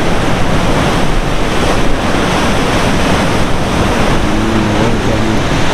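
Sea surf washing against a rocky shoreline, a steady loud rush of water, with wind buffeting the microphone.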